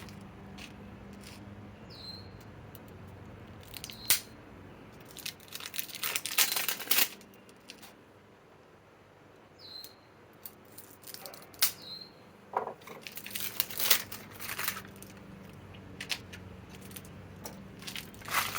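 Packaging wrap being torn and crumpled by hand while a tool is unwrapped from its box, in two spells of rustling and tearing with quieter pauses between.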